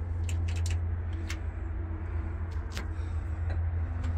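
A large engine running steadily, a low even drone, with a few sharp clicks and taps over it.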